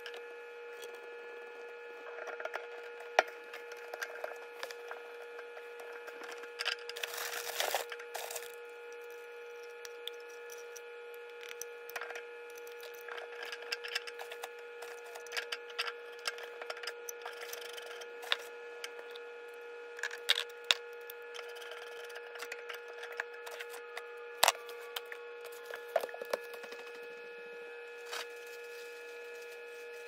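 Plastic sink drain fittings tapping, clicking and knocking as they are handled and pushed together, with a longer scraping rustle about seven seconds in. A steady hum runs underneath.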